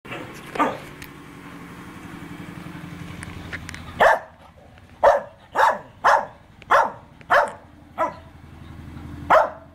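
A dog barking: one bark about half a second in, then a run of eight barks from about four seconds in, roughly two a second, with a short pause before the last.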